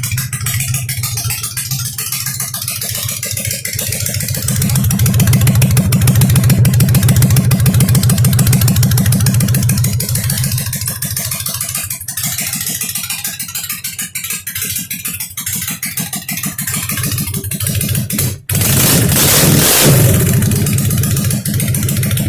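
2003 Honda Shadow Spirit VT750DC V-twin running through open Backdraft aftermarket exhaust pipes, on carb jetting not yet redone for the new pipes. It idles with a fast, even pulse, is revved up and held from about four to ten seconds, then settles back. Near the end the throttle is blipped once, sharply.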